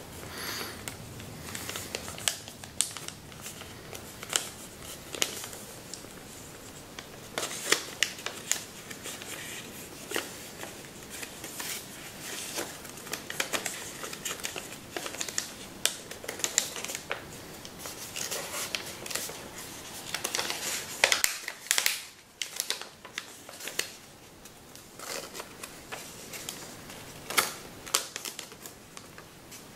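Kami origami paper crinkling and crackling as hands fold it and press creases, in irregular sharp crackles with a dense run about two-thirds of the way through.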